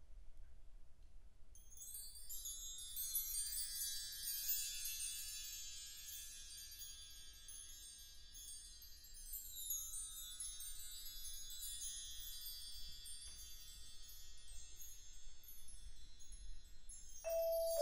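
Bar chimes (mark tree) stroked several times, a shimmering cascade of high metallic tinkles that rings on and slowly dies away. Near the end, mallet notes on a keyboard percussion instrument come in.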